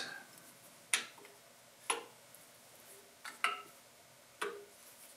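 Hand wrenches clicking against the steel injector line nuts of a diesel engine as they are fitted and worked: a handful of short, sharp metallic clicks, roughly one a second.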